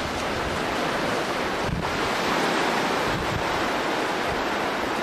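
Steady rushing of wind buffeting the microphone over the sound of surf, with an irregular low rumble.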